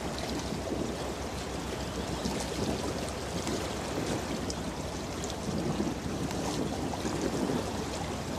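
Steady rush and low rumble of a large container ship passing close by, its bow wave and wash mixed with wind on the microphone.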